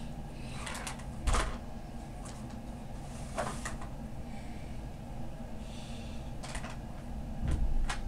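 Hard plastic toy farm pieces clicking and knocking as they are handled and set down, with two heavier thumps, about a second in and near the end.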